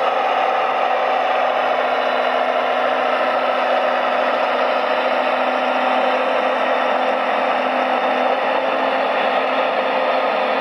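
Small electric motors of a radio-controlled construction model whirring steadily, with no change in pace.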